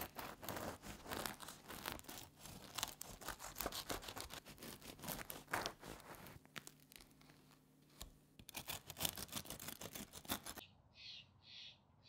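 A knife sawing through the crust of a sourdough loaf, the crust crackling and crunching with each stroke, with a short pause around two-thirds of the way through. Near the end it gives way to a bird chirping repeatedly.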